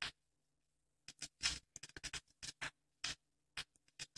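Scattered, irregular clicks and crackles of a record under the stylus of a Dual 505-2 turntable, over a faint steady low hum.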